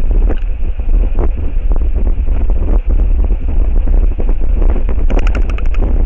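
Strong wind buffeting the microphone of an outdoor camera: a loud, gusty low rumble, with a brief crackling about five seconds in.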